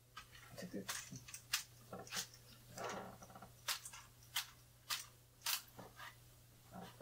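Aluminium camera tripod being handled: a string of sharp clicks and light knocks at irregular intervals as its legs and fittings are worked.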